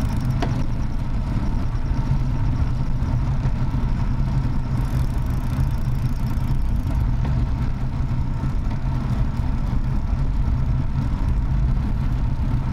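Motorcycle engine running steadily at low road speed, with road and wind noise, picked up by a camera mounted on the bike.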